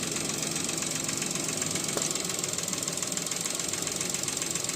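Suzuki Alto's three-cylinder petrol engine running with a steady, rapid knock. The mechanic traces the knock to a loose connecting-rod bearing on cylinder number 3.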